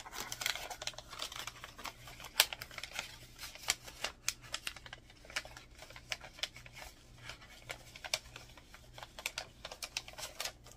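Paper sticker sheets and their packaging being handled: a run of irregular light clicks, taps and rustles, with one sharper click a couple of seconds in.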